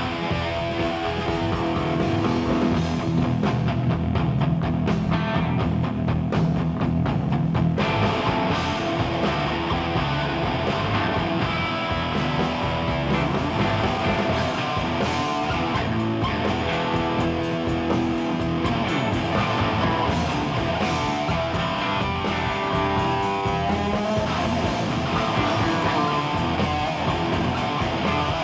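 Live hard rock band playing an instrumental passage: electric guitar lead with long bent notes over bass and drums.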